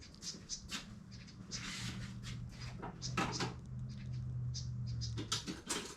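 Light clicks, taps and scrapes of hand tools being picked through and handled, over a low steady hum that swells about two seconds in and drops away near the end.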